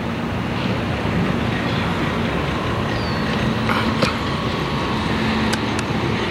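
Steady road traffic noise from a nearby highway, with an engine drone underneath and a few light clicks in the second half.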